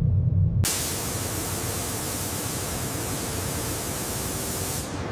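Spray gun hissing steadily as coating is sprayed on. The hiss starts abruptly just after a low rumble cuts off, and dips briefly near the end.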